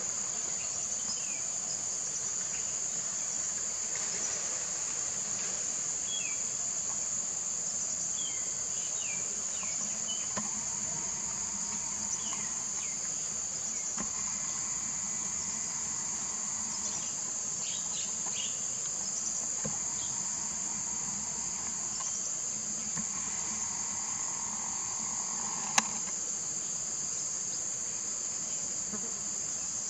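Forest insects in a steady, high-pitched chorus, with faint scattered short chirps and one sharp click near the end.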